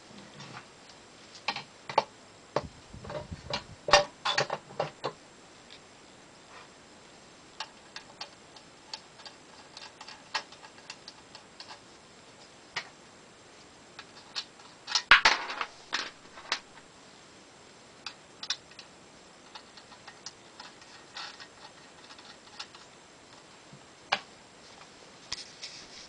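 Irregular light clicks and metallic ticks from an antique Empire No. 1 typewriter's mechanism being handled. There are two denser runs of clicks, one a couple of seconds in and one about halfway through, as its ribbon spool is turned by hand.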